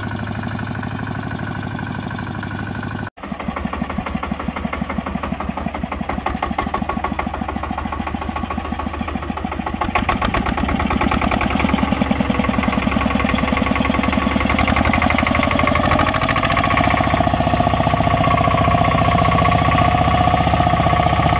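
Two-wheel walking tractor's single-cylinder diesel engine chugging as it pulls a loaded trailer, with a brief break about three seconds in. It gets louder about ten seconds in, and its pitch rises a few seconds later as the engine speeds up.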